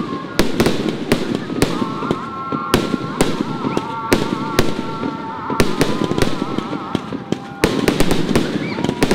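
Aerial firework shells bursting in quick succession: a dense run of sharp bangs and crackles throughout.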